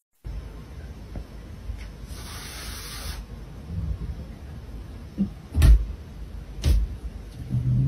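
A cat striking a framed mirror with its paw: two sharp thuds about a second apart over quiet room noise.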